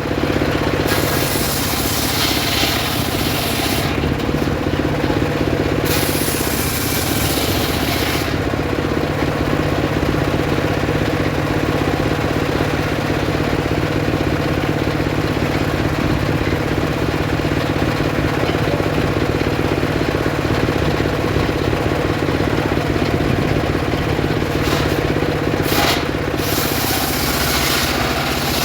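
Homemade circular sawmill ripping sengon wood into boards. The saw's motor runs steadily throughout. A hissing rasp of the blade cutting through the wood comes in several stretches in the first eight seconds and briefly twice near the end.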